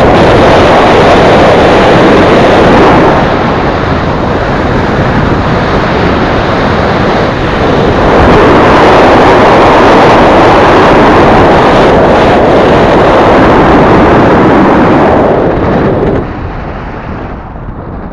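Heavy wind buffeting on the microphone of an action camera mounted outside a moving car, mixed with road noise; it drops sharply about two seconds before the end.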